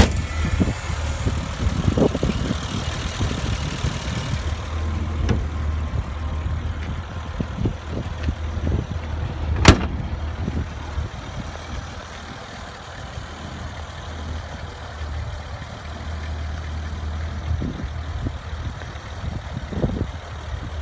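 BMW 325i's 2.5-litre M20 straight-six idling steadily, with scattered knocks and one sharp click about ten seconds in.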